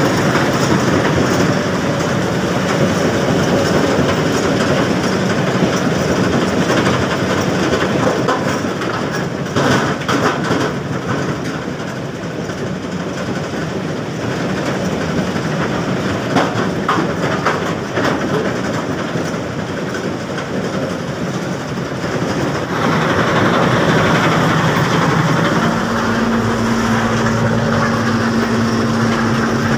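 Mobile iron-ore crushing and screening plant running, its vibrating screen and conveyors giving a dense, steady rattling clatter of rock. There are bursts of sharper knocks about a third of the way in and again past halfway, and a steady hum joins near the end.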